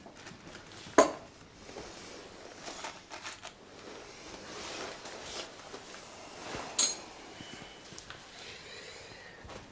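A china cup and saucer set down on a table with a sharp clink about a second in, followed by clothing and paper rustling. Another sharp knock comes near seven seconds.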